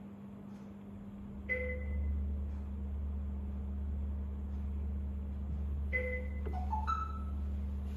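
Electronic chime tones: a single chime about a second and a half in, another near six seconds, then a quick run of rising notes near seven seconds. Under them runs a steady low machine hum that grows louder about a second and a half in.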